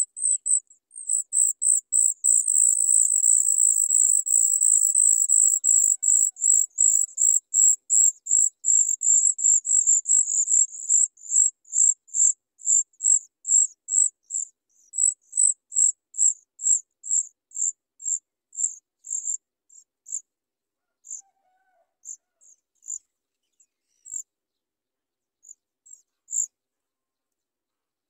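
Chat nestlings giving high, thin begging calls for food while the parent is at the nest: a near-continuous run of calling that breaks up about ten seconds in into rapid separate notes, which thin out and stop near the end.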